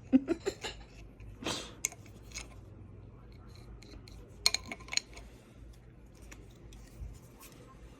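Light clicks and clinks of small hard objects being handled, in clusters near the start and about halfway through.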